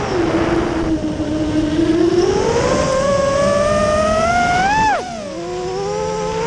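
FPV quadcopter's motors and propellers whining, the pitch following the throttle: it falls at the start, climbs steadily for about four seconds, drops sharply about five seconds in as the throttle is cut, then rises again.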